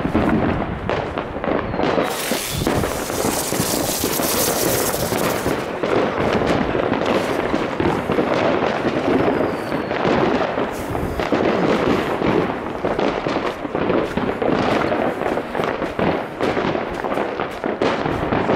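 Many fireworks and firecrackers going off at once, a dense, unbroken crackle of pops and bangs. About two seconds in, a loud hiss joins it for three seconds or so.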